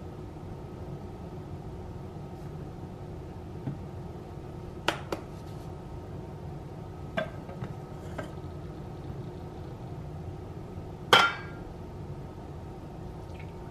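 Teaware being handled: a few short, sharp clicks and clinks, two close together about five seconds in, fainter ones later, and a louder glass clink about eleven seconds in as a glass teapot is taken up.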